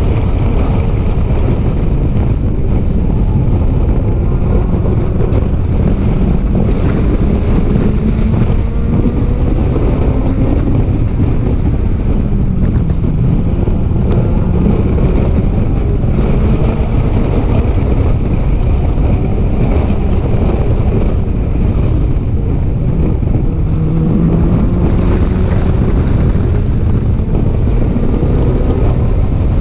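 Race car engine heard from onboard at racing speed, its revs climbing in repeated rising sweeps and dropping back through gear changes, under a heavy rumble of wind on the microphone.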